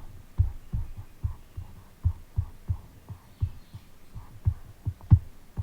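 A series of dull, low thumps, about three a second and irregularly spaced, over a faint low hum; one stronger thump comes about five seconds in.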